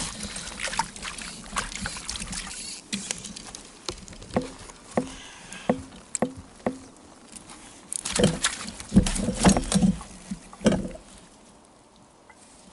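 Light knocks and taps as an angler handles his gear aboard an inflatable pontoon boat. In the middle there is a run of evenly spaced taps about half a second apart, then a quick cluster of louder knocks, and then it turns quieter near the end.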